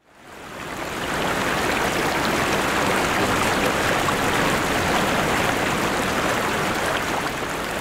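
Shallow seawater rushing and splashing over rocks, a steady wash of water noise that fades in over the first second.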